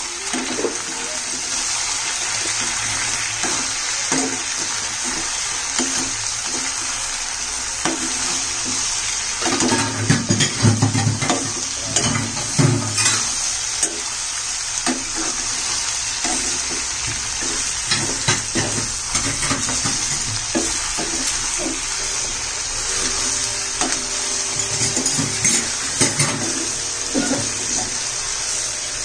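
Pork pieces sizzling in a pan, stirred with a spatula that scrapes and knocks against the metal, with the busiest stirring about ten to thirteen seconds in. Salt has just gone in to draw the water out of the meat, so the meat sizzles wet.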